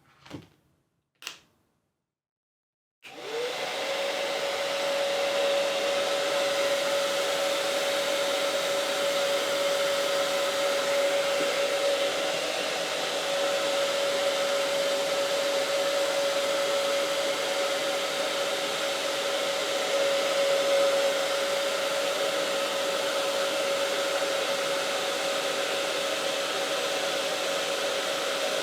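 A handheld hair dryer switched on about three seconds in. Its motor whine rises quickly to one steady pitch and runs on evenly with the rush of air, heating the grip tape's adhesive. A couple of faint knocks come just before it starts.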